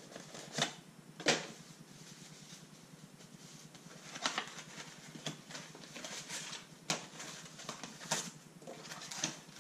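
Unboxing handling noise: a cardboard box and packaging being rummaged through, with rustling and scraping and a scatter of sharp knocks and taps, the loudest a little over a second in.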